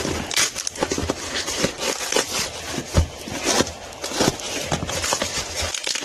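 Plastic packaging crinkling and rustling as a parcel is opened and handled, with scattered clicks and light knocks.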